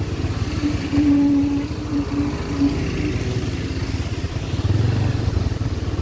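A motor vehicle's engine running with a steady low rumble.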